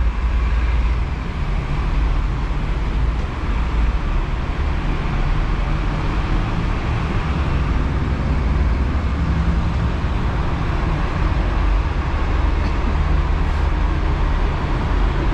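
Steady road traffic noise: a constant low rumble with road hiss and no single event standing out.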